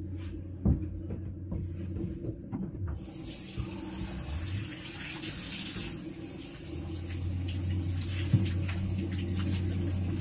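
Bathtub tap running as a cloth is rinsed under it, with water starting suddenly about three seconds in. A single knock comes shortly before.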